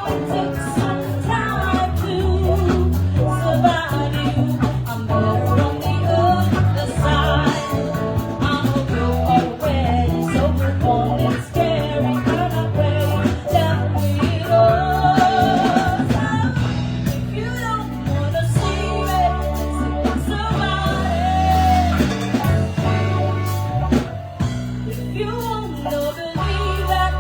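Live band playing a song with a singer: a sung melody with vibrato over bass and drums.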